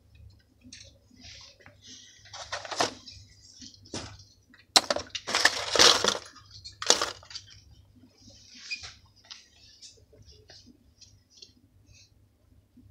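Small plastic fishing floats clattering and rustling as a hand rummages through them in a cardboard tray. There are several loud bursts of rattling around the middle, then scattered light clicks.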